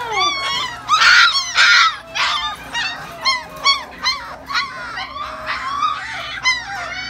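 Litter of four-week-old puppies squealing and whimpering: many short, high-pitched cries overlapping, several a second, loudest about a second or two in.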